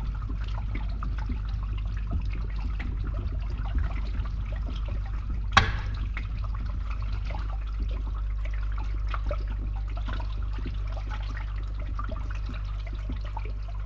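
Water trickling and dripping as it drains inside a pipe, over the steady low hum of a pump. One louder, sharp drip about five and a half seconds in.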